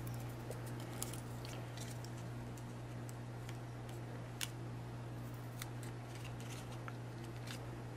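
Faint paper-handling sounds: a few soft clicks and light rustles as paper cut-outs backed with foam mounting tape are set and pressed onto a card, over a steady low hum.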